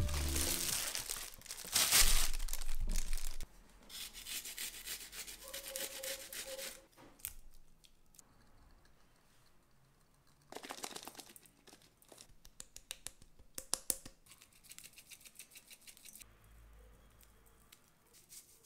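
Rustling, crinkling handling noises in bursts, loudest in the first few seconds, then quieter scattered clicks and taps.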